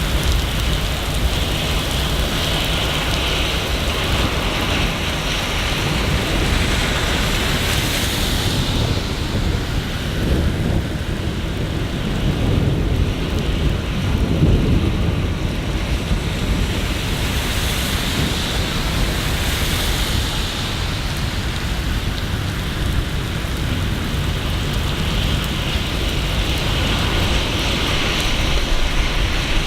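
Steady rain falling, with a low rumble that swells and fades away in the middle.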